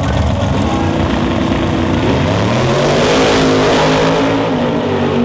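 Two drag-radial race cars' engines held at high revs on the starting line, then launching about two seconds in. The engine pitch climbs steadily as the cars accelerate away down the strip.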